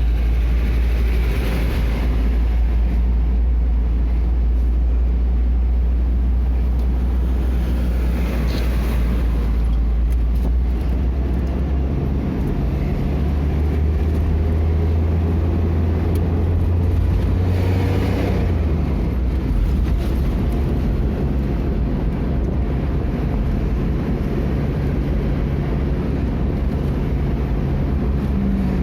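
A motor vehicle driving: a steady low engine and road rumble, its low hum shifting in pitch about halfway through.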